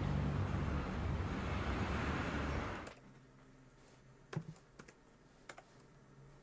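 City street ambience with a low rumble of traffic, cutting off abruptly about three seconds in to a quiet room where a few laptop keyboard keys are tapped sparsely.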